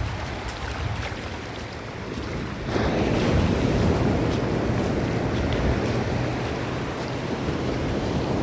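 Ocean surf washing onto the beach, with wind rumbling on the microphone. The surf swells louder about three seconds in and stays up.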